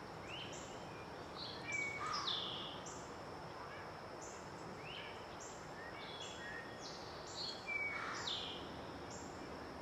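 Wild songbirds chirping and whistling over a steady outdoor hiss, with short calls repeating every second or so. Two louder moments stand out, about two seconds in and again near eight seconds.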